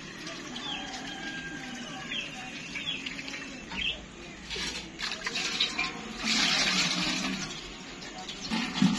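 Short bird chirps, then water from a tap running and splashing into a steel sink as a clay pot is rinsed, loudest from about six seconds in.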